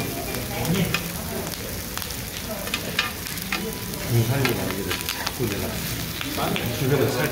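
Frozen pork belly slices sizzling as they fry on a foil-lined pan, with short clicks of metal tongs against the pan and foil as the slices are moved.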